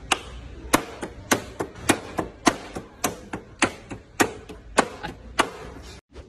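Hammer striking a wooden crate in a steady run of about ten sharp blows, a little under two a second.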